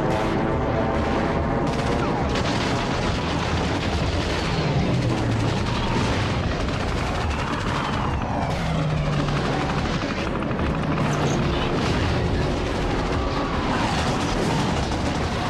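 Combat-footage soundtrack of aircraft engines droning, mixed with gunfire and booms. A pitch glide near the middle fits a plane diving past.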